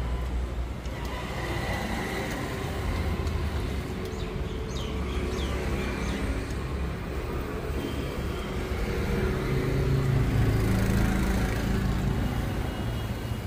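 Steady road-traffic noise: vehicle engines running at a low pitch, with a few faint short high chirps about four to six seconds in.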